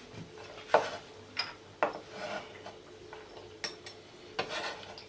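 Kitchen knife knocking and scraping on a plastic cutting board as chopped garlic is gathered into a small bowl: about five separate knocks with faint scraping between them.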